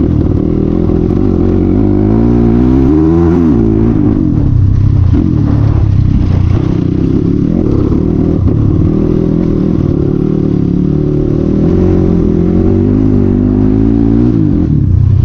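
CX250R dirt bike engine running loud through its open exhaust with the dB killer removed, under way on a rough road. It revs up about two seconds in, drops back, and climbs again near the end.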